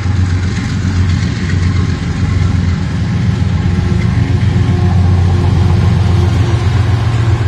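Diesel locomotives of a freight train approaching and crossing a railway bridge: EL class units, their engines running with a steady deep drone that grows a little louder as the lead locomotive comes onto the bridge near the end.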